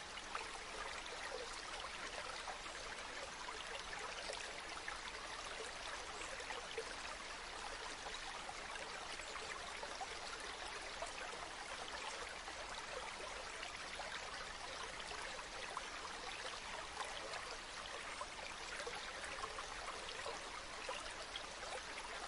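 Stream of water running and babbling over rocks, a steady rushing with fine splashing and trickling.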